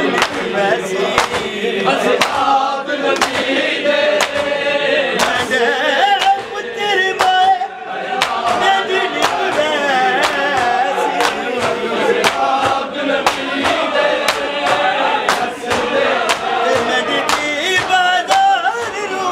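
Chorus of men chanting a Punjabi noha, a mourning lament, with repeated sharp slaps of hands striking chests in matam.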